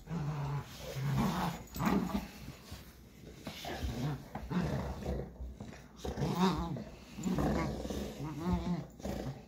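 A puppy growling in repeated short bouts, roughly one a second, during tug-of-war play with a larger dog over a rope toy.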